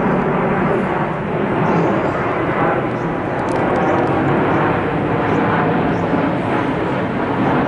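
Twin-engine widebody jet airliner passing low overhead on final approach with its landing gear down: a loud, steady rush of jet engine noise.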